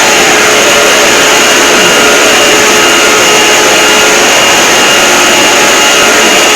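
Mock emergency alarm audio, boosted to extreme loudness and clipped into a steady, harsh distorted noise with a few faint steady tones inside it.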